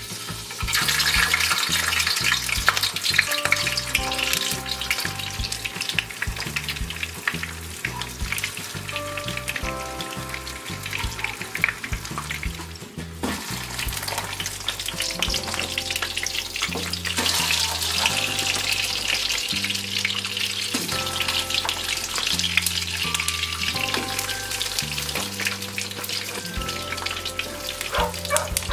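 Oil sizzling and crackling in a frying pan as dumplings and gimmari (seaweed rolls) shallow-fry. It starts about a second in and breaks off briefly about halfway through before resuming.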